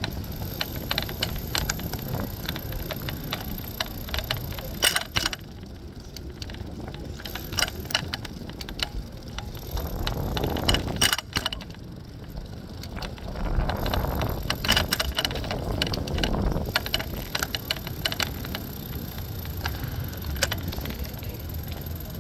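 Oslo city bike being ridden: many rattling clicks and knocks from the bike, with wind rumbling on the microphone. Two louder swells of noise come about ten and fourteen seconds in.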